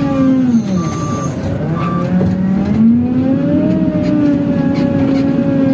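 JCB wheel loader's diesel engine heard from inside the cab, its revs dropping about half a second in and then climbing again and holding as the machine works. A short beep sounds a few times in the first two seconds.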